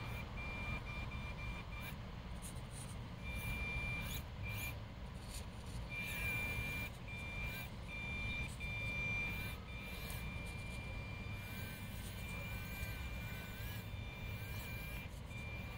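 Electric drive of a 1/24-scale HBX Devastator RC rock crawler whining at one steady high pitch, switching on and off in short and longer bursts as the throttle is worked to climb boulders. There are occasional light clicks of the truck on rock.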